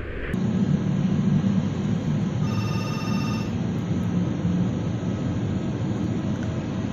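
Steady low rumble from a Boeing 777 being pushed back by a tug. About two and a half seconds in, a ringing electronic tone, like a phone, sounds for about a second.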